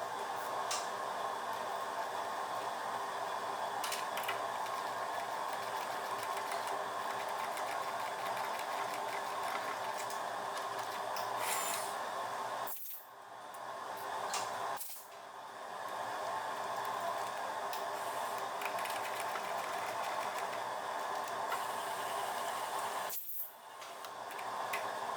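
TIG welding arc buzzing steadily as ripples are laid down a titanium ring, breaking off briefly three times and restarting.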